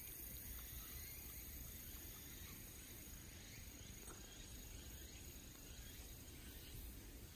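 Faint forest ambience: a quiet steady hiss with a thin, high insect drone that fades out about halfway through.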